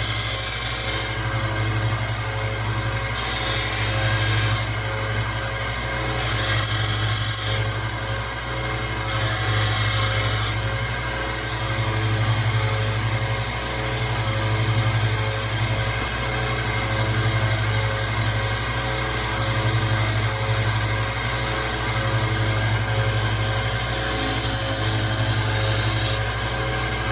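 A 1x30 Rikon belt sander running steadily while a knife blade is pressed against the belt in repeated passes, each pass a hissing grind lasting a second or two: several in the first ten seconds, then the motor alone, then another pass near the end. The steel is being ground back to reprofile the blade's bevel.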